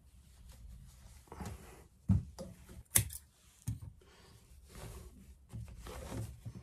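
Woven exhaust wrap being wound tightly around a motorcycle exhaust header pipe: the coarse fabric rasps and rustles as it is pulled through by hand. Two sharp knocks stand out, about two and three seconds in.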